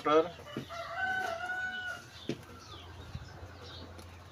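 A rooster crowing in the background: one held, slightly wavering call lasting about a second, starting about a second in. A few faint knocks follow.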